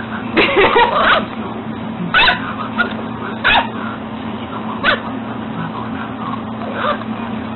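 A puppy giving short yips and whimpers: a quick cluster about half a second in, then single ones every second or so, over a steady low hum.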